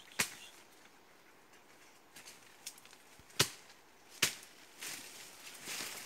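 Several sharp woody cracks in the forest undergrowth, the loudest about three and a half seconds in and another just after four seconds, then a rustling of leaves and brush near the end.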